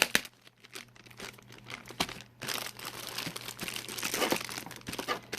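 Packaging crinkling and rustling as it is handled and pulled at, with a sharp click at the start; the crackling grows denser and busier about halfway through.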